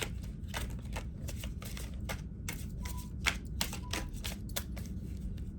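Tarot cards being handled and shuffled: a run of irregular, light card flicks and clicks.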